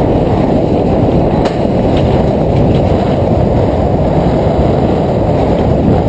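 Steady low rumble of a bobsled coaster car running down its rail track at speed, with wind buffeting the microphone.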